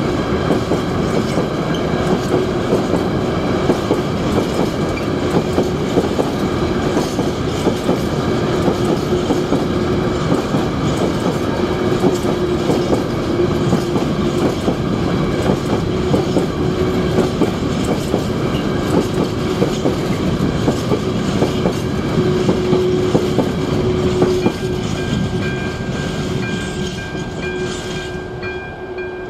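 Freight train wagons rolling across the level crossing, wheels clattering steadily over the rail. About 24 seconds in the train noise begins to fade, and the crossing's ZV02 electronic warning bell is heard ringing.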